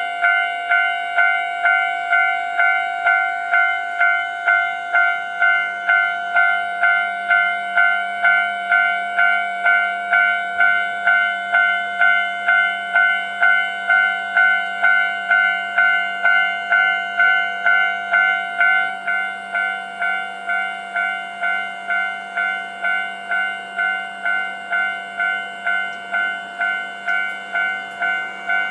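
Japanese railway level crossing alarm ringing, an even 'kan-kan' of bell strikes a little over two a second. A steady low hum joins about five seconds in, and the ringing drops somewhat in level about two-thirds of the way through.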